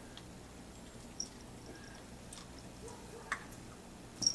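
Quiet room tone with a few faint ticks and two short high-pitched pings, one about a second in and a sharper one near the end.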